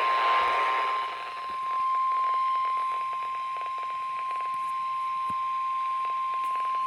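NOAA Weather Radio 1050 Hz warning alarm tone: one long, steady, high beep received over the radio, with faint static hiss and crackle underneath. It signals that an alert message is about to be broadcast.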